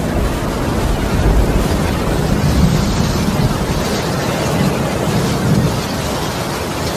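Thunder rumbling loudly and steadily, heavy in the low end, with no sharp crack.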